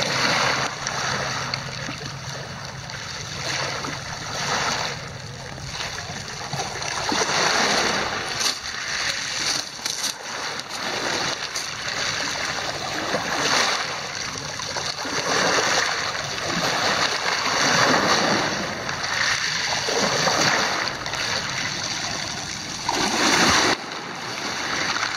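Small waves washing up over a pebble beach and drawing back, swelling and fading every few seconds.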